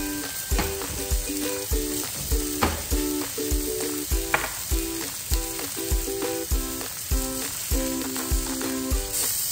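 Pork barbecue skewers sizzling on a hot stovetop griddle, under background music with a steady beat, a low thump about twice a second.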